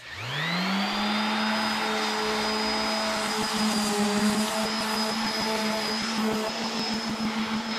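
DeWalt random orbital sander starting up, its motor whine rising quickly in pitch in the first second, then running steadily. It is sanding down filled cracks on a vinyl dash pad.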